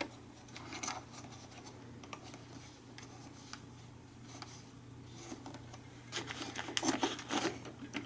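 Faint rubbing and light plastic clicks from hands handling the humidifier's small scent-pad door, with a busier run of clicks and rustles about six to seven and a half seconds in.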